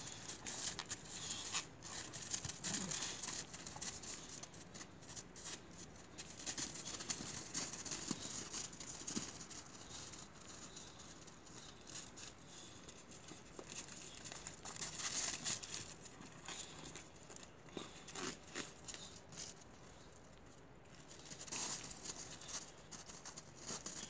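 Boxer dogs' paws crunching and scrabbling on crusted, icy snow as they tug and tussle over a rag, in irregular bursts of crackling crunches.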